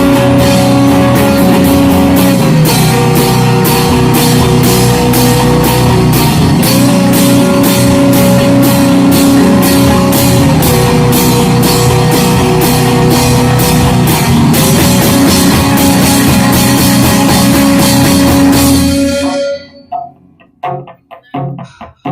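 Shoegaze rock band playing live: loud guitars over a drum kit with a steady cymbal beat, and a held melody line that shifts between two notes every four seconds or so. The full band stops suddenly about 19 seconds in, leaving a few sparse, quieter guitar notes.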